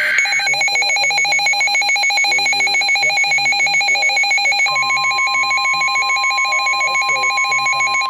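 NOAA weather radio receiver sounding its alert: a loud, fast-pulsing electronic alarm. About halfway through, the broadcast's steady 1050 Hz warning alarm tone joins it, which signals that a warning, here a flash flood warning, is about to be read.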